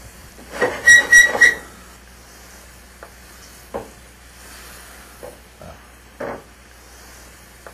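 Pan sauce simmering faintly in a sauté pan while a wooden spoon bastes the meat. There is a loud squeaky scrape of the spoon against the pan about a second in, then a few light taps and clicks.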